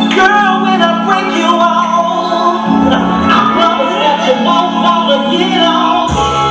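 Recorded song with singing over sustained low chords and a beat.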